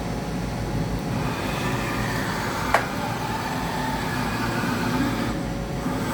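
1993 Fadal VMC40 CNC vertical machining center running under power. A steady motor hum carries whining tones that start about a second in and shift slightly in pitch, with one sharp click near the middle.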